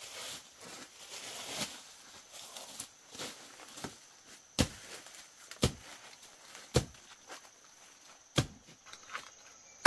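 Rustling of leaves and stems, then four sharp chopping strikes about a second apart: a machete cutting plant stalks.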